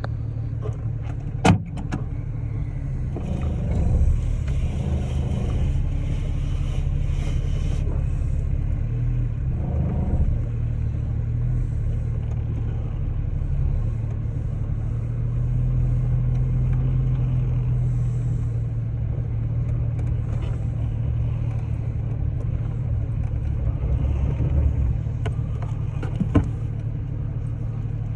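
Off-road vehicle driving: a steady engine and road rumble, with sharp knocks about a second and a half in and again near the end.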